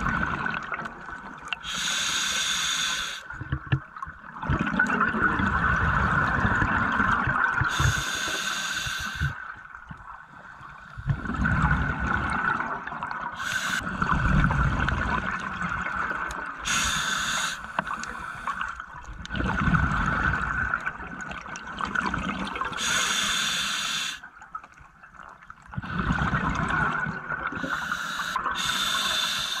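Scuba diver breathing through a regulator underwater: a short hiss on each inhalation every five to six seconds, each followed by a longer stretch of rumbling, gurgling exhaust bubbles.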